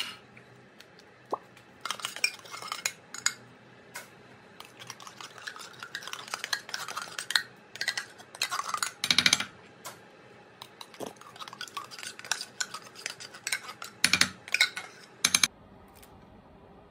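A metal spoon scraping and knocking against cans and a skillet while condensed cream soups are spooned out and stirred together, in irregular scrapes and clinks with a few louder knocks.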